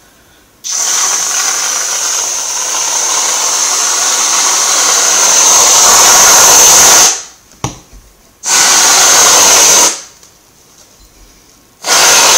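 Aerosol whipped-cream can spraying in hissing bursts: one long spray of about six seconds, a short one about a second and a half long, and another starting near the end.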